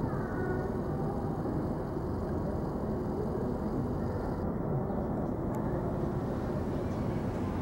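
Steady outdoor street ambience: a low, even rumble of city traffic, picked up by a compact camera's built-in microphone.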